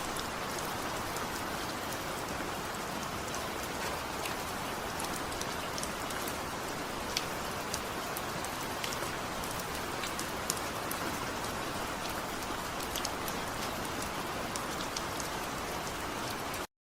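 Heavy rain falling steadily, without thunder, with scattered sharper drop ticks over the even hiss. It cuts off suddenly near the end.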